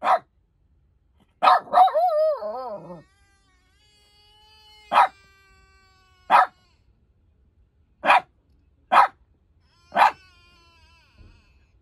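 Shiba Inu barking at strangers approaching, about eight sharp single barks spaced a second or more apart. About two seconds in, a wavering, howling whine runs for about a second.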